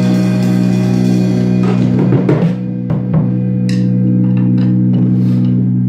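Drum kit played along to a rock recording: a few drum hits and then several cymbal strikes over a steadily ringing guitar chord.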